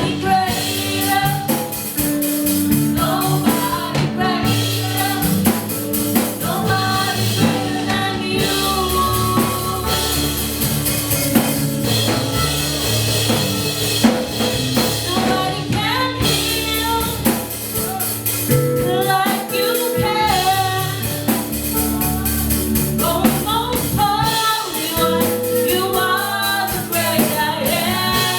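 Live contemporary gospel worship music: a band with drum kit and bass playing under a sung melody.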